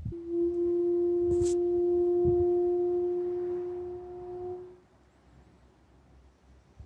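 An unexplained steady hum: one held, fairly low tone with fainter higher tones above it, lasting nearly five seconds and then dying away, with a short click partway through. It is the mysterious noise that the recordist traces to a nearby house.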